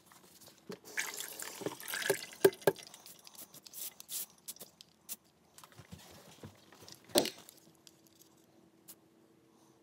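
Water splashing and dripping at a stainless steel kitchen sink, with scattered short knocks and handling noises, and a single sharp knock about seven seconds in.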